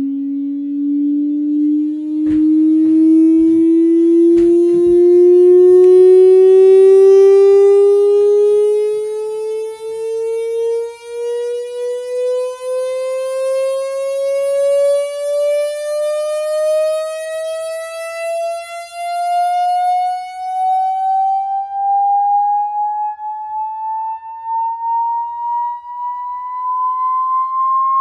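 Samsung HW-Q800A sound bar playing a sine-wave test tone that sweeps steadily upward in pitch, from about 270 Hz to about 1,100 Hz. The tone carries a buzz, shown by many rising overtones above it, which the owner puts down to the sound bar itself. A few sharp clicks come in the first few seconds.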